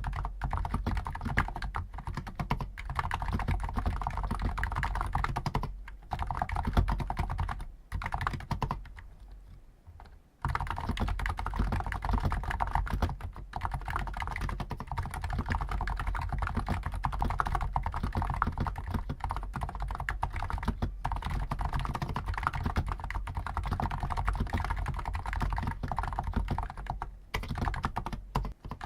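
Continuous rapid typing on a Hansung GTune CHL5 XRGB electro-capacitive (contactless, Topre-style) keyboard with stock 50 g switches, with a pause of about two seconds roughly a third of the way in.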